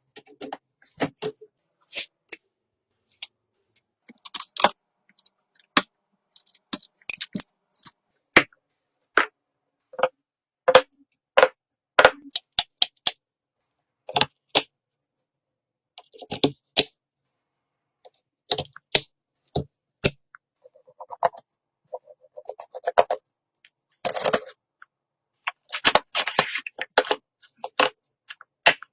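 Irregular sharp clicks, taps and short scrapes of hard plastic and metal parts being handled and fitted together in a computer build, with short silent gaps between them.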